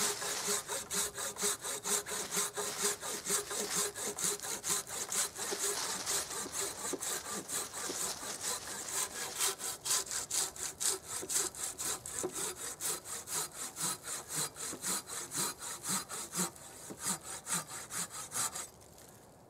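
A hand saw cutting through a log in steady back-and-forth strokes, about two a second. The sawing stops abruptly near the end.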